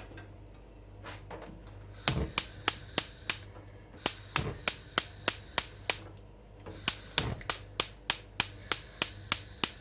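Gas stove's spark igniter clicking rapidly, about five clicks a second, in three runs, as the burner is being lit.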